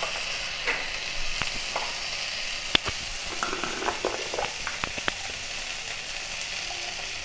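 Mustard oil sizzling steadily in a kadai under frying potatoes, onions and freshly added ground spices, with a few sharp ticks and pops scattered through the hiss.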